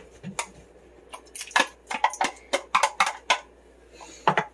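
Kitchen utensil clattering against a dish: a quick run of sharp clinks and knocks in the middle, then one more near the end, as leftover cooked chicken is scooped into the stew pot.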